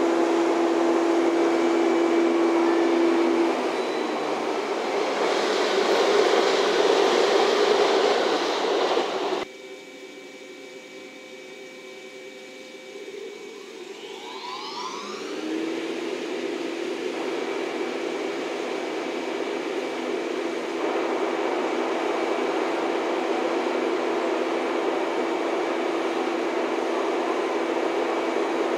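JNR 115 series electric train moving at low speed. After an abrupt drop about nine seconds in, the standing train's underfloor equipment whines up in pitch and settles into a steady hum.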